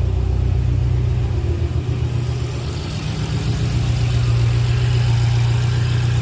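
BMW M5 F10's 4.4-litre twin-turbo V8 idling steadily on its first start after a fresh set of EU6 fuel injectors and an adaptation reset. It runs smoothly rather than rough.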